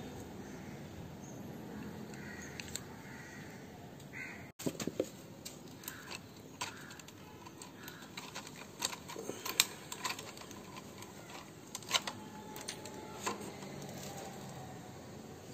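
Light, irregular clicks and short metallic clinks as gloved hands handle small metal parts during a scooter oil change, with two sharper clinks about ten and twelve seconds in.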